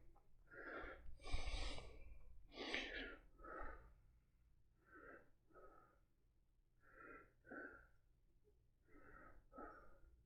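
A person's heavy breathing close to the microphone: short in-and-out breaths, mostly in pairs, about every one to two seconds. This is the breathing of someone with COPD who has missed their medication.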